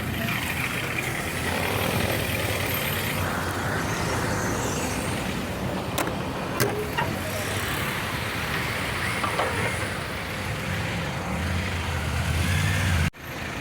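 Ford car engine running with a whining groan from the power steering as the wheel is turned: the power steering fluid is low, below the minimum mark. The sound cuts off abruptly near the end.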